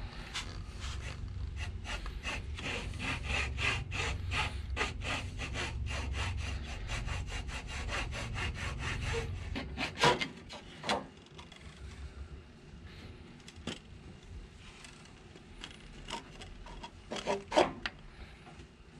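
Small hacksaw cutting across a wooden board in rapid, even back-and-forth strokes, about three or four a second. About ten seconds in the sawing stops with a loud knock, and a few scattered knocks follow, two close together near the end.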